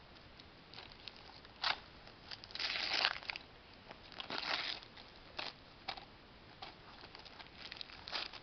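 Gift wrapping paper crinkling and rustling in short, irregular bursts as a present is unwrapped, with the longest stretch of crinkling about three seconds in.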